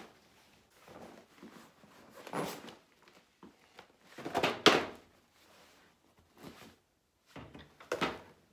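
Items being taken out of a bag and set down on a glass-topped coffee table: rustling handling noise and a few knocks. The loudest comes about four and a half seconds in, and another cluster comes near the end.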